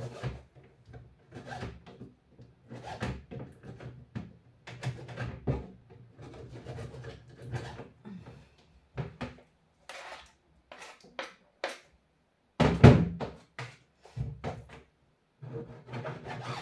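Knife cutting raw liver on a wooden cutting board: irregular taps and knocks of the blade against the board, with one heavier thunk about three quarters of the way through.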